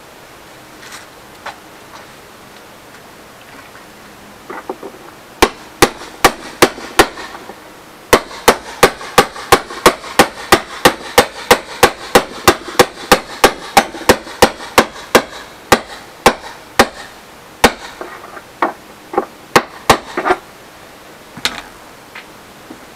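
Hammer blows driving a rod through a tight press-fit hole. A few strikes come first, then a long even run of about three blows a second, then slower, scattered blows near the end.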